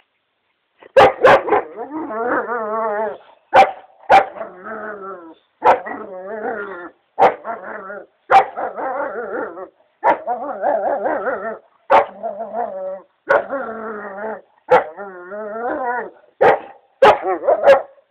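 German Shepherd–type dog barking at a stone it is pawing and nosing, over and over, with long wavering whining, growl-like moans between the barks.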